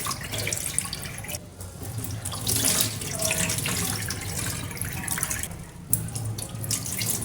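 Tap water running into a sink with splashing. The stream drops out briefly twice, about one and a half seconds in and again near the end.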